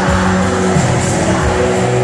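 Live rock band playing: drums, electric guitar and keyboards with sustained low notes and a steady beat, recorded loud from within the audience.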